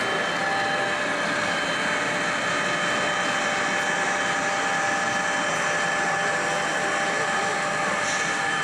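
Steady din of a busy exhibition hall, a constant noisy hum with a few faint steady whistling tones running through it.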